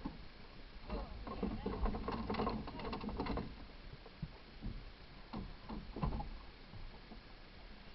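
Faint, indistinct voices for a couple of seconds, then a few short knocks, over a steady low rumble.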